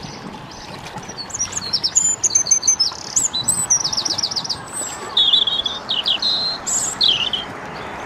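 Small songbirds chirping and singing: a scatter of quick high chirps, a fast run of repeated notes about halfway through, and a few short sliding whistles near the end, over a steady low hiss.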